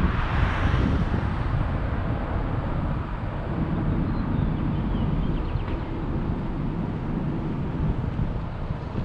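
Steady road and wind noise of a car driving on a paved highway: a low rumble, with a brief louder rush of hiss in the first second.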